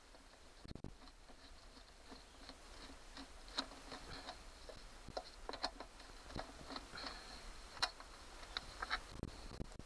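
Scattered small clicks and taps of a screwdriver and gloved hands working the screws and plastic engine cover of a lawnmower.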